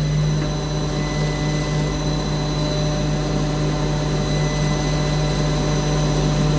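Haas CNC lathe running with its spindle turning a brass bar while a parting-off tool cuts the part off: a steady low hum with the cutting noise over it.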